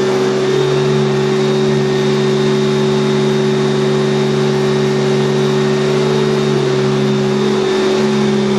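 Vacuum cleaner running steadily: a constant motor hum with an airy rush of suction.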